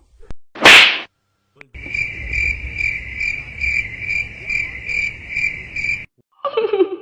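Cricket chirping in a steady high trill that pulses about twice a second, over a low rumble: the stock 'crickets' comedy effect for an awkward silence. Before it, about half a second in, a short loud burst of noise, the loudest thing here.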